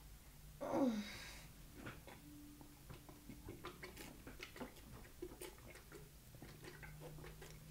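Chocolate milk being chugged straight from a plastic jug: a brief falling vocal sound about a second in, then a run of faint soft clicks of gulping and swallowing.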